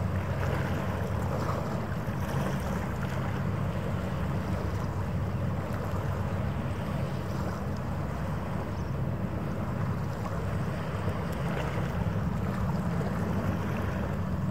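Steady low rumble of a large cruise ship's machinery during berthing, with some wind noise on the microphone.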